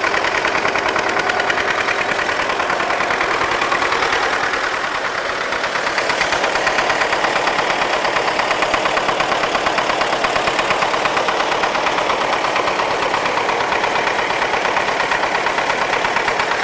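Belarus MTZ-80 tractor's four-cylinder diesel engine running steadily with its rebuilt fuel injection pump, a little quieter for a moment about five seconds in.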